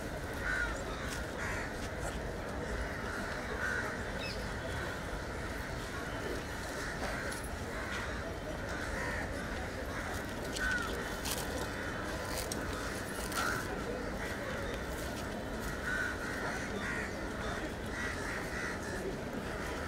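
Crows cawing with short calls scattered every second or two, over the low steady murmur of a crowd gathered outdoors.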